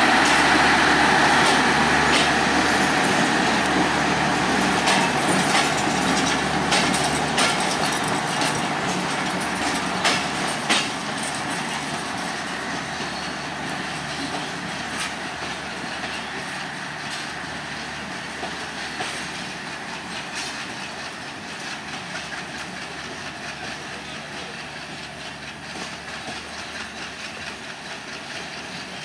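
Passenger coaches of a departing express train rolling away on the track. The wheels click over rail joints, and the noise fades steadily as the train draws off.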